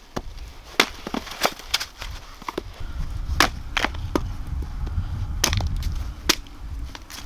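Sharp chopping strokes, about seven at irregular intervals, over a low steady rumble.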